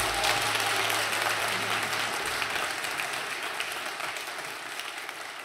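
Audience applauding, a dense patter of many hands clapping that steadily fades away.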